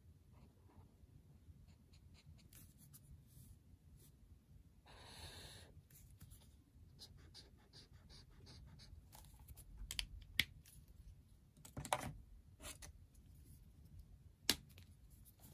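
Stabilo Boss pastel highlighter's felt chisel tip scratching across notebook paper in short strokes, one longer stroke about a third of the way in, and a few sharp clicks in the second half.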